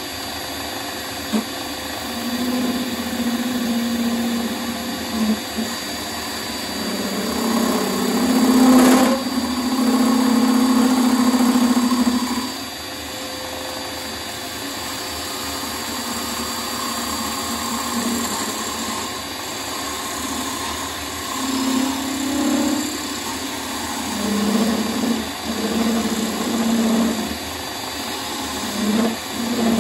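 Wood lathe running steadily while a tool cuts into the spinning bowl blank in bouts. The cutting sound swells and fades, and is loudest about eight to twelve seconds in.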